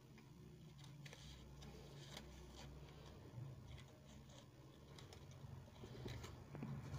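Near silence, with faint scattered light taps and paper rustles as a strip of insulation paper is pushed by hand under the bender of a winding-paper cutting and folding machine.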